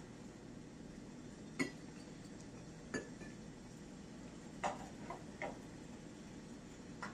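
Sharp clinks of a small cup knocking against a stainless steel saucepan while boiling water is scooped out, about six in all, with three in quick succession about two-thirds through, over a faint steady background.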